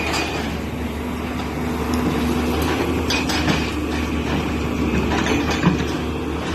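Excavator engine running steadily with a low drone, with a few short metallic knocks about three seconds in and again near the end.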